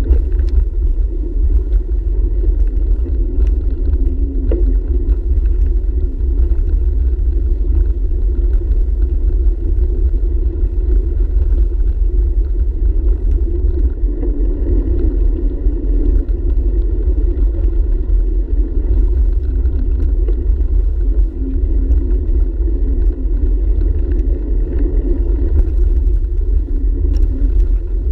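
Steady rumble of a bicycle rolling over a packed dirt trail, heard through a handlebar-mounted camera: tyre and frame vibration mixed with wind on the microphone, with a few small clicks and rattles.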